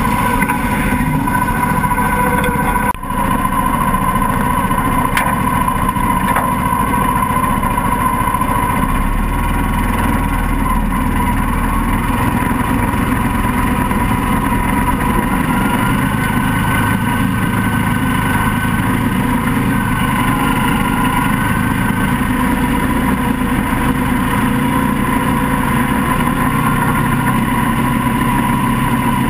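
Mini swamp buggy's engine running steadily at a constant pitch while its tyres churn and splash through shallow swamp water. The sound dips briefly about three seconds in.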